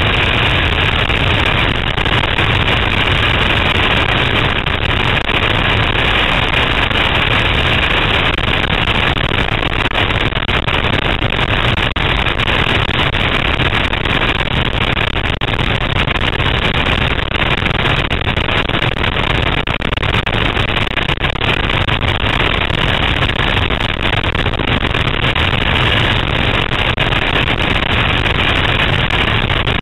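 Steady, loud rush of freefall wind blasting over a skydiver's camera microphone.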